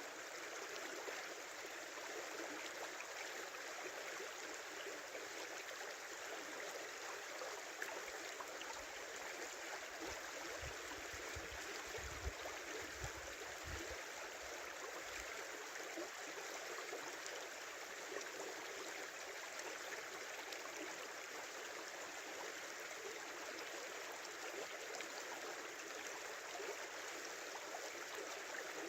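Small river running in a steady, even babble of flowing water. A low rumble joins it for a few seconds about ten seconds in.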